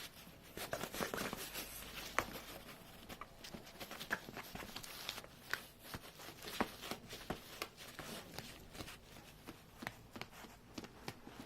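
A bag rustling and crinkling in irregular scratchy bursts, with sharp clicks and taps scattered throughout, as a cat moves in and around it.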